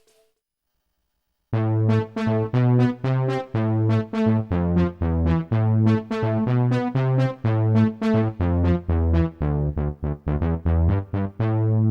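Korg N364 synthesizer playing a factory preset: a keyboard-like patch of quick, sharply struck notes that die away, over held bass notes. It starts after about a second and a half of silence.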